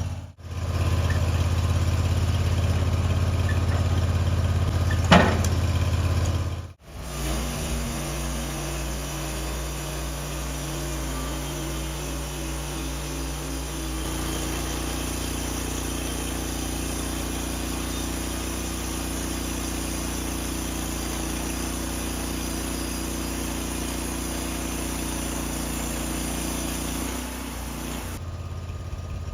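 Engine running at a steady speed, broken by abrupt cuts, with a short sharp squeal about five seconds in.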